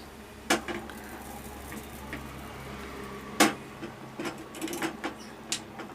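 Cookware being handled at a stove just switched off: a sharp click about half a second in, a louder clack about three and a half seconds in, and a few lighter knocks near the end, over a low steady hum.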